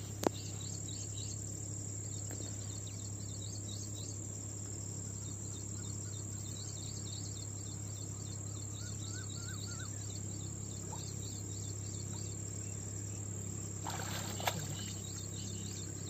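Insects chirping in a fast, even rhythm over a continuous high buzz. A bird gives a short warbling call about nine seconds in. There is a sharp click just after the start and a brief rush of noise about fourteen seconds in.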